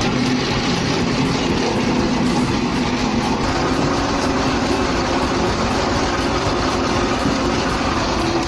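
Tractor engine running steadily, powering a homemade log splitter's hydraulics.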